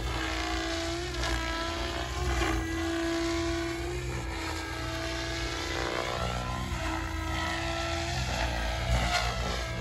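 Banshee 700 radio-controlled model aircraft flying overhead: a motor whine whose pitch slides up and down as it swoops and turns, over a steady low rumble.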